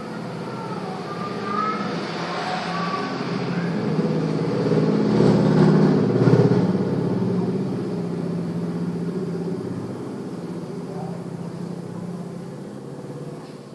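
A motor vehicle's engine passing by, growing louder to a peak about six seconds in and then slowly fading away.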